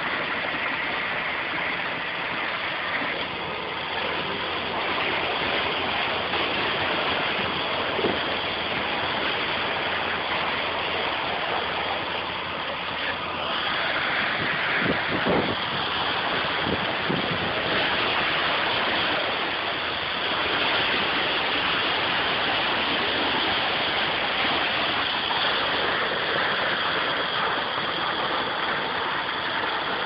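Concrete truck engine running steadily during a concrete pour, a continuous noisy drone with a rushing quality and a few short knocks partway through.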